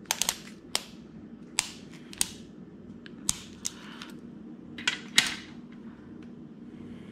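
Click-type torque wrench clicking over at its 48 ft-lb setting as the main cap bolts of a Ford Gen 3 Coyote V8 are tightened, with handling of the wrench and socket between. A series of sharp clicks, some in quick pairs, spread over the first five seconds or so.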